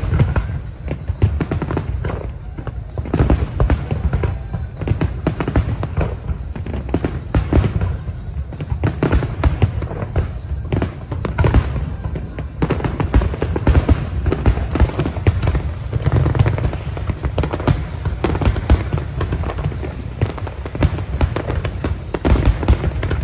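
Large aerial fireworks display: a dense, unbroken barrage of shell bursts, deep booms and sharp cracks overlapping one another with no pause.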